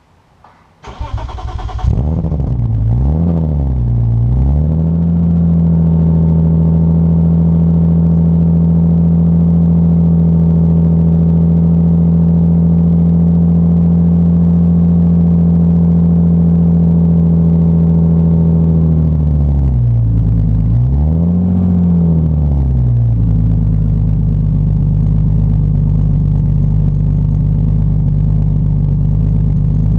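1995 BMW M3's straight-six, run with no catalytic converters through a straight-piped exhaust ending in a Remus muffler, heard at the tailpipes. It starts about a second in and is blipped twice, then settles into a steady idle. About two-thirds of the way through it is revved once, up and back down, and then idles again.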